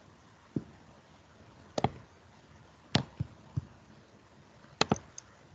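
A handful of sharp computer mouse clicks, about seven, two of them in quick double-click pairs, over faint steady background hiss.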